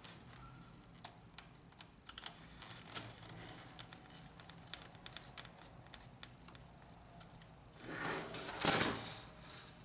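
Faint small clicks and ticks of a screwdriver turning a screw out of the plastic side frame of a Lexmark laser-printer drum unit. Near the end, a louder rustling scrape as the plastic cartridge is handled and turned on the table.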